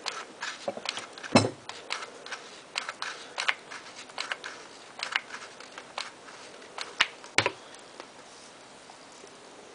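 Irregular light clicks and taps from handling a chicken wire heart, a string of flat-back pearls and a hot glue gun on a work surface, with two louder knocks about a second and a half in and again near seven and a half seconds. The clicking stops for the last two seconds.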